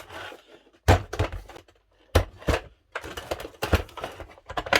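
Hand tools and plastic parts being handled in a hard plastic toolbox: a few sharp knocks, then a run of clatter and clicking near the end.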